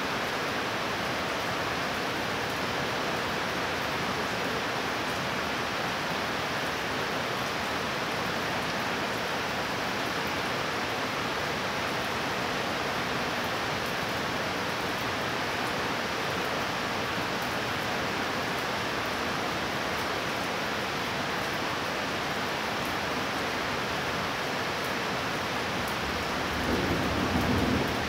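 Steady rainfall, an even hiss of rain. A low rumble swells briefly near the end.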